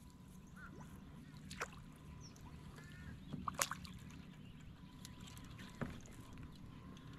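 Quiet boat ambience: a low steady hum with a few faint taps and clicks as a crappie is lifted on a long rod and swung into the boat, and a couple of faint short squeaks.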